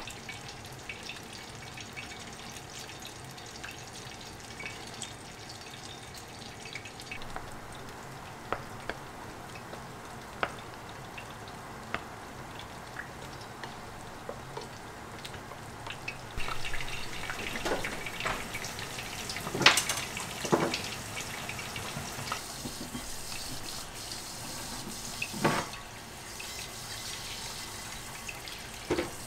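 A few small utensil taps during the first half. About halfway in, a kitchen tap starts running as an iron frying pan is scrubbed under it, with several clanks of the pan.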